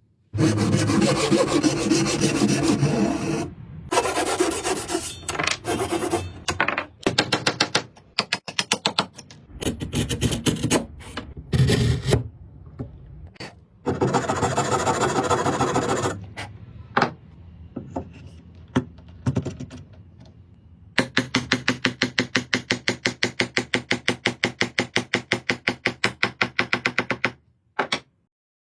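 Rasping, scraping strokes on wood. They come as long continuous passes and as runs of short strokes, and near the end as a fast, even run of about four to five strokes a second.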